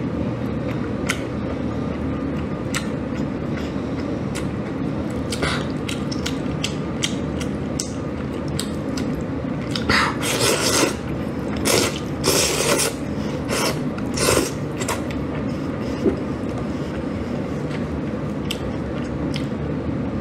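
Close-miked eating sounds: scattered wet clicks and smacks from chewing and biting braised meat. A run of louder sucking, tearing mouth noises comes about halfway through as she bites into the meat, all over a steady low hum.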